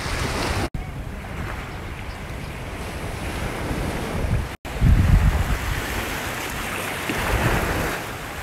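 Wind buffeting the microphone over sea waves washing in, with a heavy low rumble. The sound cuts out abruptly twice.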